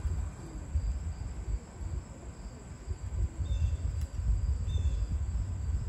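Wind buffeting the microphone in uneven gusts, with a faint steady insect trill behind it and two brief faint chirps about three and a half and nearly five seconds in.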